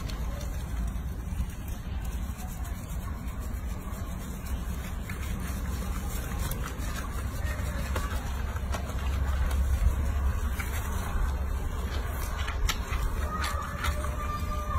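A steady low rumble, with faint splashing and rubbing of soapy bath water in a sink as a baby macaque is washed by hand, and a few soft clicks.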